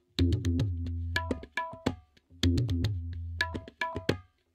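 Background music: a short phrase of sharp percussive hits and a few high notes over a deep bass note, repeating about every two seconds with brief gaps between.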